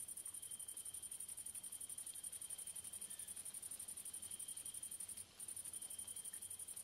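Grasshoppers chirping in a fast, even, high-pitched pulsing buzz that breaks off briefly about five seconds in, with a fainter, lower steady trill coming and going behind it.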